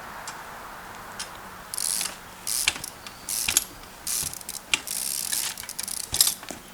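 Trials bike's Echo 108 front freewheel buzzing in about six short ratcheting spurts as the bike coasts between pedal strokes, starting about a second and a half in, with a few sharp clicks among them.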